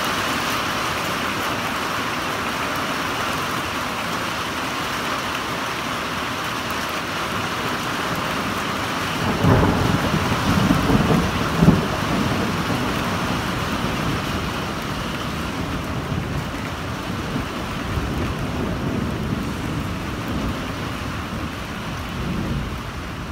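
Heavy rain falling steadily in a thunderstorm, with a low rumble of thunder rolling for about two seconds starting around ten seconds in.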